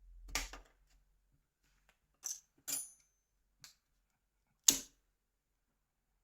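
Clicks and snaps of a Nokia 6303 classic's casing as its clips are worked free and a part is pried out: five sharp clicks a second or so apart, the loudest near the end.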